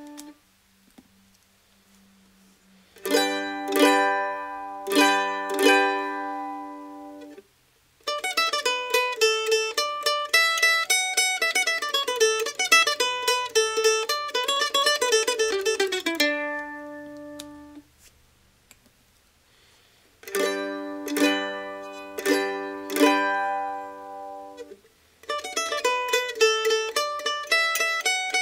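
Kentucky KM-600 mandolin played with a pick, first a V-Picks Tremolo and then a V-Picks Saga: four ringing strummed chords, then a fast run of single picked notes ending on a held note. After a short pause the same four chords and fast run begin again.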